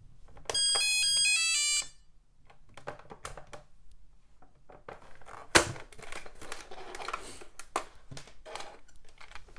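A 2001 children's learning computer playing a short electronic jingle of quick beeps stepping downward in pitch, lasting about a second and a half. Then plastic clicks and knocks as the machine is handled, with one sharp knock about five and a half seconds in.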